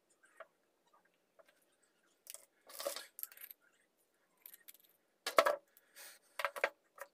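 Disassembled Celma electric drill parts (motor stator, housing and wires) being handled in gloved hands: scattered short clinks, knocks and rustles, the loudest about five and a half seconds in.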